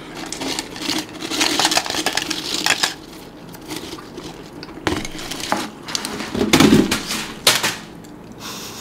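Potato crisps rattling and sliding inside a cardboard Mr. Potato canister as it is tipped and shaken, with crisps clattering out. There is a dense run of crackly clicks at first and a few louder knocks and rattles later on.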